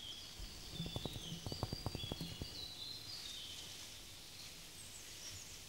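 A tarantula tapping the ground with its legs: a run of about ten faint, soft taps over a second and a half, the percussive signal it uses to communicate. Under it runs quiet forest ambience with high chirping.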